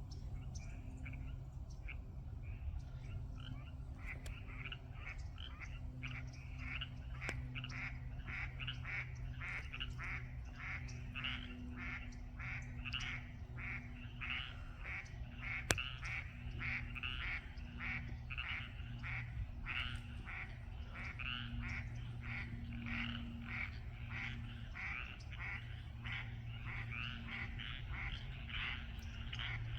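A chorus of frogs and ducks: many short, quacking calls repeat several times a second, thickening about four seconds in, over a low steady hum. There is one sharp click about halfway through.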